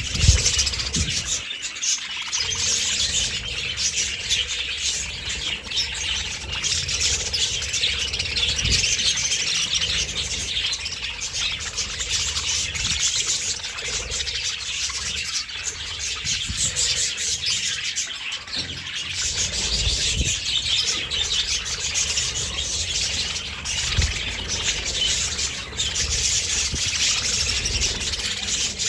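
A flock of budgerigars chattering and chirping continuously, many birds at once, with a low thump right at the start and a few fainter ones later.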